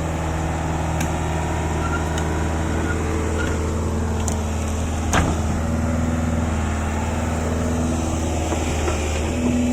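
Heavy diesel engine running steadily at a constant low drone, with a single knock about five seconds in.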